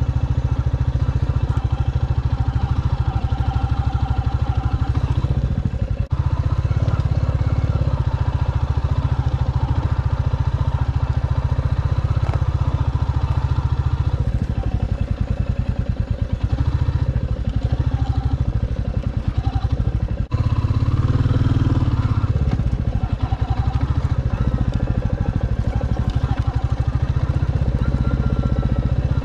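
Royal Enfield Classic 350's single-cylinder engine running steadily as the motorcycle is ridden along a rough dirt track. The sound dips briefly twice, about six seconds in and again about twenty seconds in.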